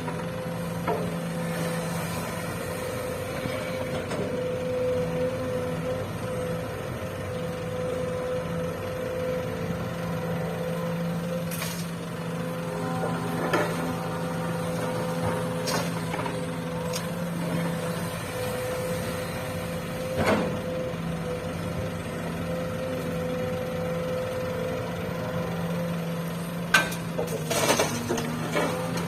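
Diesel engine of an excavator loading soil into a dump truck, running at a steady drone, with a few sharp knocks and clatters scattered through and a cluster near the end.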